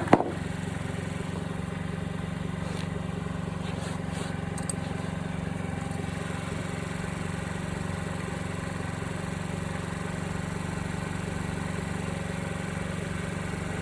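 2020 Honda Ruckus scooter's 49cc four-stroke single-cylinder engine idling steadily while it warms up the oil, with a few light clicks about three to five seconds in.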